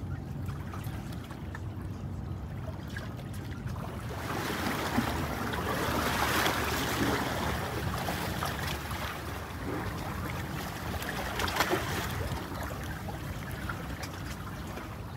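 Water washing and lapping over a low steady hum, probably from a ship's engine. The wash swells about four seconds in and slowly eases off.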